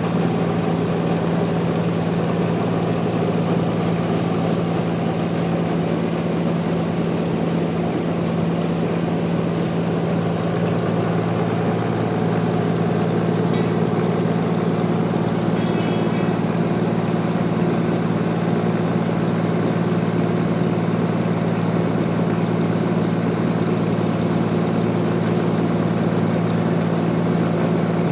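Sawmill machinery running with a steady, even hum. About halfway through, a higher hiss joins in.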